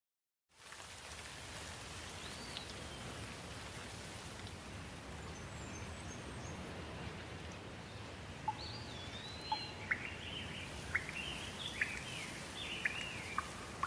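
Steady rain falling, starting half a second in, with birds calling over it: a single whistled note a couple of seconds in, faint high chirps, and from about eight seconds a lively song of short, sharp sweeping notes.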